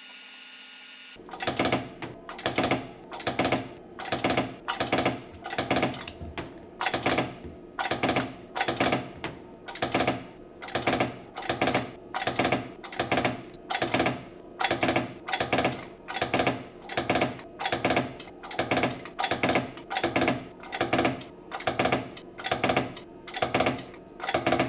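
Homemade battery spot welder firing over and over as thin nickel strip is welded onto lithium-ion cells: short, even weld pulses about one and a half a second, starting about a second in.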